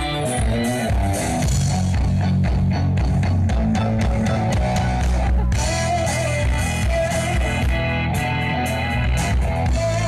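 A cover band playing guitar-led rock music live through an outdoor PA system, with a run of quick, evenly spaced hits in the middle.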